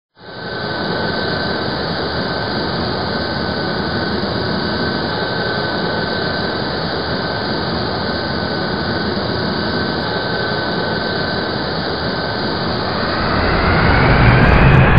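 Jet engine roar with a steady high whine, cutting in abruptly at the start; near the end it swells louder and the whine rises in pitch, as in a jet spooling up to thrust.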